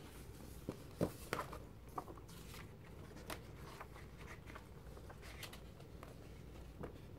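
Glossy magazine pages being turned and pressed flat by hand: a string of paper rustles and crinkles, the loudest about a second in.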